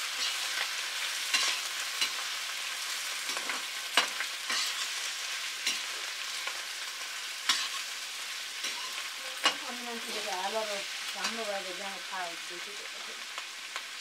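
Pieces of mutton sizzling in hot oil in a black wok, stirred with a metal ladle that scrapes and clinks against the pan every second or two.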